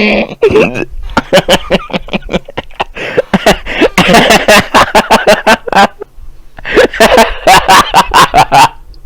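A man laughing hard: a rapid run of short, gasping laughs with voiced stretches between them, and a brief lull about six seconds in.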